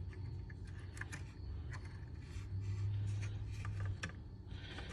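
Small clicks, ticks and scrapes of a 3D-printed plastic catch piece and its spring being handled and pushed into a Honda Gold Wing's catch assembly, over a steady low hum.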